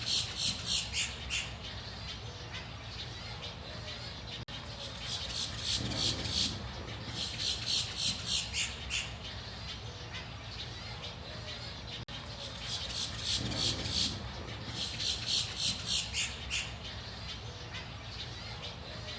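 Birds at a colony squawking: three bouts of rapid, repeated high-pitched calls, several a second, each lasting two to three seconds, at the start, about six seconds in and about thirteen seconds in.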